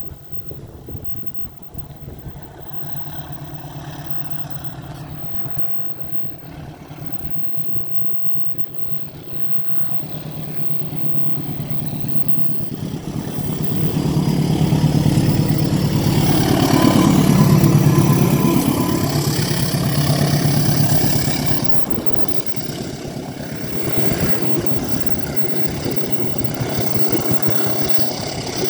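Diesel locomotive approaching and passing, its engine building to loudest about halfway through, with the pitch dropping as it goes by; the train's steady rumble carries on after.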